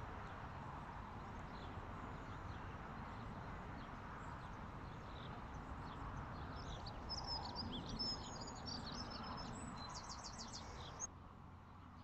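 A small songbird singing a quick run of chirps and trills over a steady outdoor background rush, from about halfway through. A short click comes near the end, after which the background drops.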